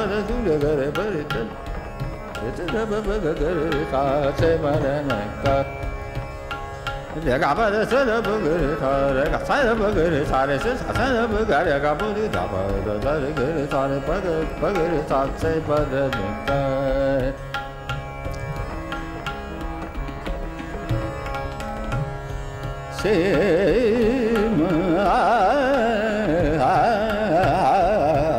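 Hindustani devotional singing (bhajan): a male voice sings long, gliding, ornamented phrases over a steady tanpura drone, with tabla strokes keeping time. The music swells louder about 23 seconds in.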